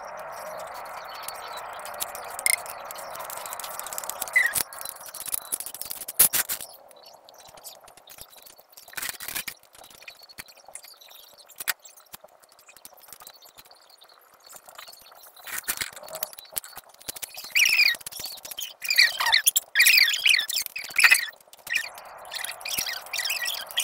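A filler spreader scraping and dabbing body filler onto a motorcycle luggage carrier's steel tubes, laying on a second coat: irregular scrapes and small clicks, busiest and loudest in the last third.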